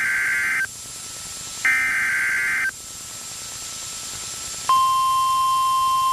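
Emergency Alert System SAME header: the end of one warbling digital data burst and then another, each about a second long with a second between them. After a two-second gap, the steady single-tone NOAA Weather Radio warning alarm starts and holds, announcing a warning.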